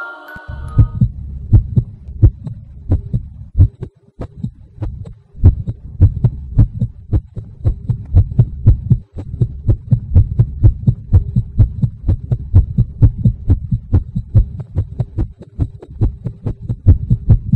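Fast heartbeat sound effect: low thumps repeating a few times a second, with a faint steady hum beneath. The film uses it for a racing heart.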